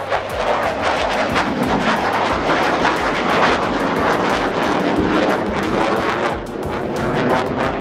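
Fighter jet flying overhead: a steady rushing jet-engine noise with a crackling edge, dipping briefly about six seconds in.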